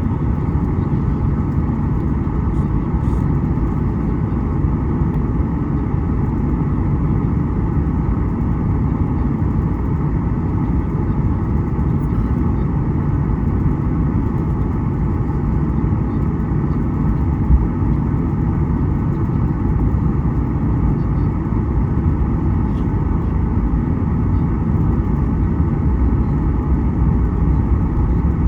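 Steady low rumble and hiss inside a Boeing 737's cabin: the jet engines and air conditioning running, with one brief knock about 17 seconds in.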